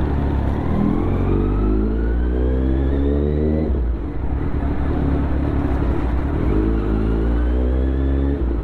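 Kawasaki Z900's inline-four engine pulling up through the revs. It drops back sharply about four seconds in, then climbs again.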